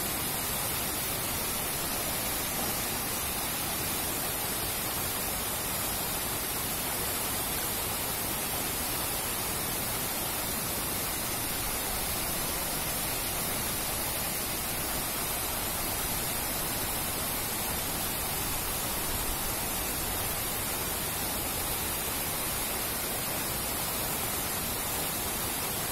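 Waterfall pouring into a rock pool: a steady, even rush of falling water that does not change.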